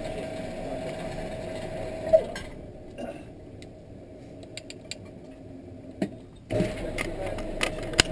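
Metallic clicks and clacks from handling an AK-47-pattern rifle, one sharp click about two seconds in and several lighter ones later, over a steady hum that fades out for about four seconds in the middle.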